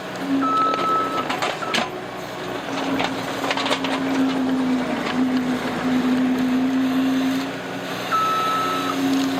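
Case TR270 skid steer's diesel engine running steadily while it works, with its backup alarm sounding a held beep about a second in and again near the end. Scattered knocks and clatter come from the machine working.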